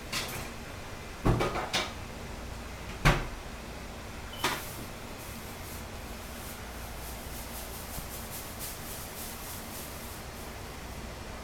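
A handful of sharp knocks and thumps in the first five seconds, the loudest about three seconds in, followed by a run of faint, quick clicking.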